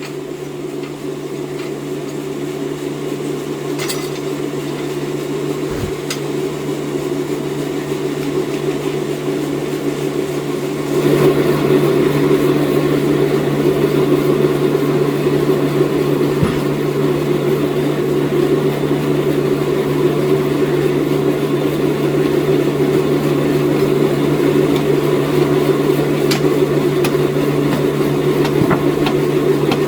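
Sawmill machinery running with a steady hum, slowly getting louder and then stepping up sharply about eleven seconds in.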